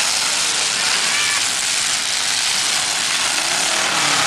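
Several demolition derby cars' engines running together, heard as a loud steady rushing noise, with a few engine revs rising and falling near the end.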